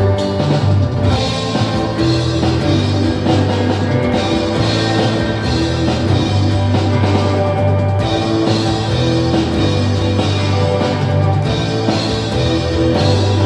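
Three-piece rock band playing live without singing: electric guitar, bass guitar and drum kit in a steady groove.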